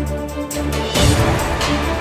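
News channel's animated outro theme music: held synth chords with a sweeping whoosh hit about halfway through.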